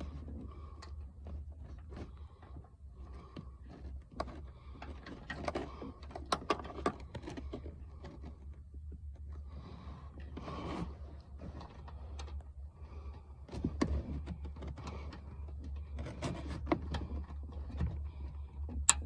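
Hands working an electrical connector and wiring in a car's rear-seat area: rustling, scraping and scattered clicks and knocks of plastic parts, with one sharp click near the end, over a steady low hum.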